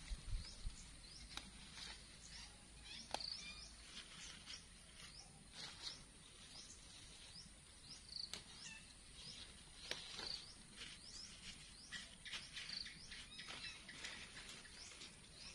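Faint, repeated chirping of small birds, with a few sharp snaps of leaf stems being picked by hand scattered through.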